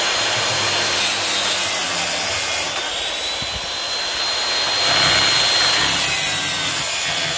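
Angle grinder with a thin cut-off disc cutting through steel bolts: a loud, steady grinding hiss with a high whine that sags slightly in pitch about three seconds in as the disc bites.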